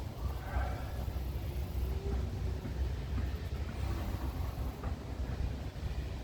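Low, gusty rumble of wind buffeting the microphone outdoors.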